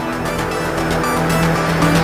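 Background music with held notes, gradually getting louder.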